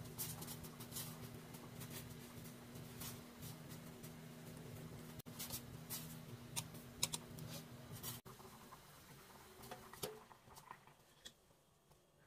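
Light clicks, taps and scratching from handling tableware and food, over a low steady hum that stops abruptly about eight seconds in.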